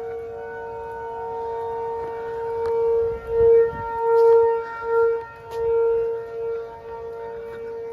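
Outdoor tornado warning siren sounding a steady tone, its loudness swelling and fading repeatedly. Near the end a fainter, lower tone rises in pitch, as another siren winds up.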